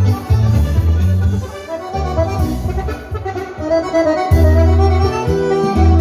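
Small diatonic button accordion (organetto) playing a dance tune: a melody over pulsing bass notes.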